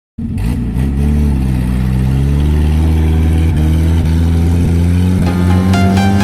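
Off-road vehicle engine running, its pitch slowly rising and falling as it revs, starting abruptly. About five seconds in, electronic music with a quick rhythmic pattern of high notes joins it.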